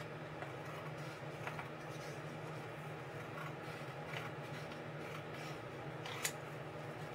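Scissors snipping through printed cardstock in separate, unhurried cuts, with one sharper click about six seconds in. A steady low hum runs underneath.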